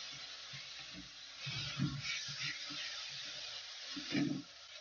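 Grated bottle gourd and sugar frying in ghee in a metal kadhai: a soft sizzle, with a wooden spatula stirring and scraping through it in short irregular knocks.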